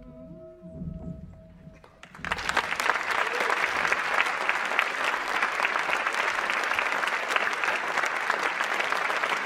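The last held tones of the music die away, and about two seconds in an audience bursts into loud, steady applause.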